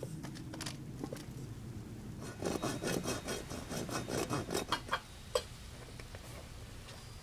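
Hand saw cutting through a white PVC sprinkler riser: quick back-and-forth rasping strokes, about four a second, from about two and a half seconds in to about five seconds, then a single sharp click.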